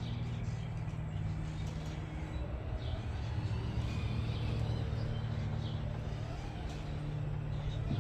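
A steady low motor hum, with faint short high chirps over it.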